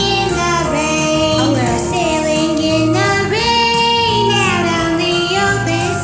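A cheerful sea-shanty-style song: a woman sings long, gliding notes over a backing track with a steady, repeating bass line.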